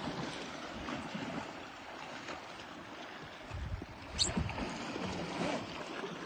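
River water lapping and splashing around a kayak, a steady watery wash. About four seconds in there is a low rumble, then one brief sharp high sound.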